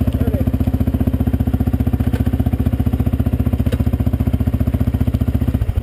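A sport ATV's engine idling with a fast, even beat, then cutting out abruptly about five and a half seconds in.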